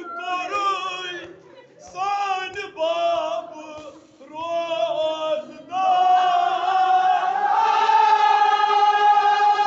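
A male reciter chanting a Kashmiri marsiya, a mourning elegy, in short sung phrases. About six seconds in, the mourners join in a sustained chanted chorus.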